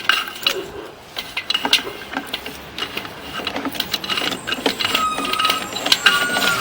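Sewer inspection camera's push cable being fed down a drain pipe: rapid, irregular clicking and rattling from the cable and reel.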